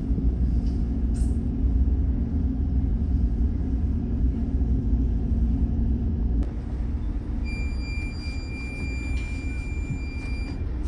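A ship's engines run with a steady low rumble during a docking manoeuvre, easing slightly after a click about six seconds in. From about seven seconds in, a high steady electronic tone sounds for about three seconds.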